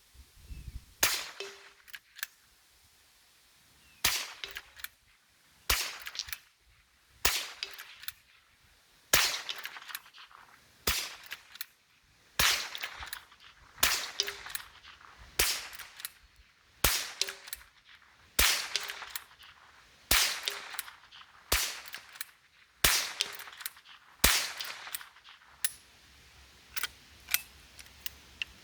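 Henry Golden Boy .22 Long Rifle lever-action rifle firing a long string of shots, about one every second and a half, the lever worked between them. A few smaller clicks follow near the end.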